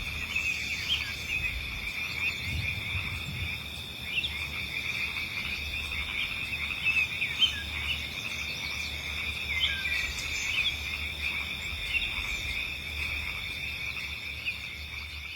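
Meadow ambience: a steady chorus of crickets and other insects, with many short chirps flickering over it.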